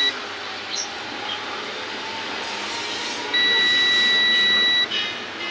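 A single electronic beep, one steady high tone held for about a second and a half, starting a little over three seconds in, over a steady hiss.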